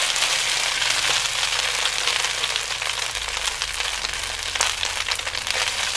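Fresh flat rice noodles frying in oil in a smoking-hot wok, a steady sizzle full of small crackling pops, left undisturbed so that parts of the noodles char.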